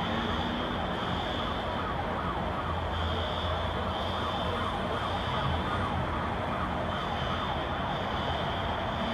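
A distant siren over steady city noise, its high tone swelling and fading every few seconds.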